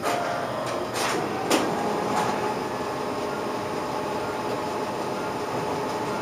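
Three light clicks of a spoon against a dish in the first two seconds, over a steady room hum.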